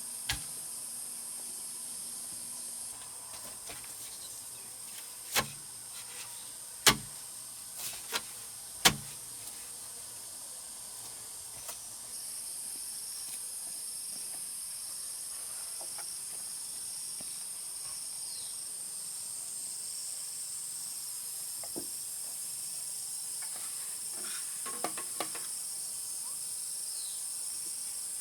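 Steady, high-pitched insect chorus, like crickets, running throughout. Four sharp knocks come between about five and nine seconds in, and a few fainter ones come near the end.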